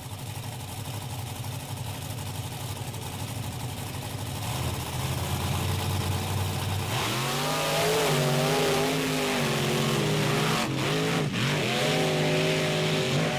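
Two monster truck engines, one the Carolina Crusher's Chevrolet, idling at the start line, then revving hard about seven seconds in as the trucks launch and race side by side. The louder engine's pitch climbs, then falls and climbs again near the end.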